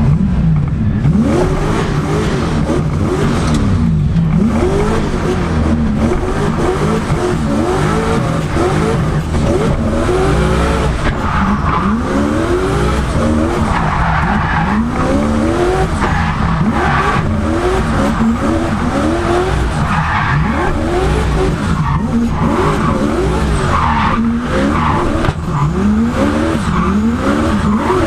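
Turbocharged Lexus 1UZ V8 of a drift car revving up and down again and again through a drift run, with tyres skidding and squealing.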